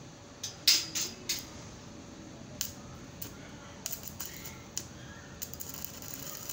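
Stick welding on square steel tubing: a series of sharp clicks and snaps as the electrode touches and strikes against the joint, then from about five and a half seconds in the dense crackle of the running arc.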